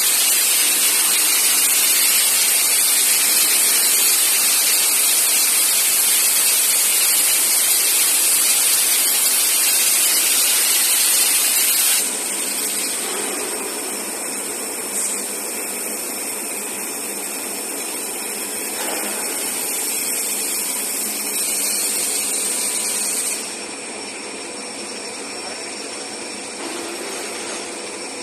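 Steady loud hissing of a CNC beveling cutting machine's torch cutting steel. The level drops suddenly about twelve seconds in and again about twenty-three seconds in.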